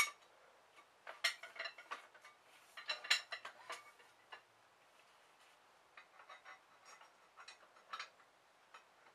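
Light metallic clicks and clinks from a topside creeper's spring-loaded clevis pins and steel leg frame being worked by hand. There is a sharp click at the start, two busy clusters of clinks in the first four seconds, then a few fainter scattered ticks later on.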